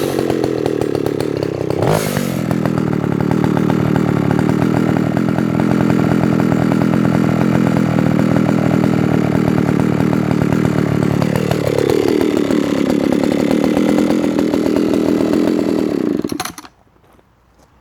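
Vintage Alpina 070S 70cc two-stroke chainsaw running at high revs, its pitch wavering. The revs drop to a lower, steady note about two-thirds of the way through, and the engine cuts off abruptly shortly before the end.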